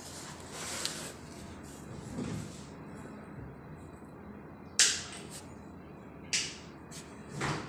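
Pliers working electrical wire at a wall outlet box: handling noise, then three short sharp snaps in the second half, the first the loudest.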